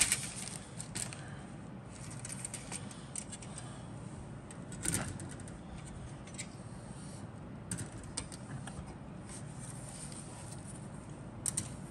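Plastic model-kit sprues and their clear plastic bags being handled: scattered light clicks of plastic parts knocking together and brief crinkles of the bags, with a slightly louder rustle about five seconds in.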